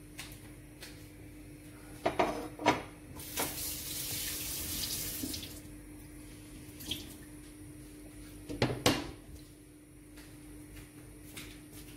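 Water running briefly for about two seconds, set between a few sharp knocks of kitchen handling just before it and a short clatter of knocks later. A faint steady hum underneath.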